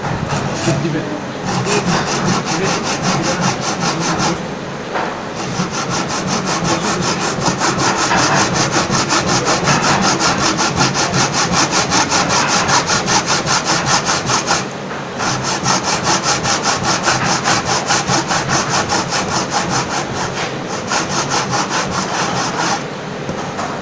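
Hand saw cutting through a block of wood in quick, even back-and-forth strokes, stopping briefly a few times before carrying on.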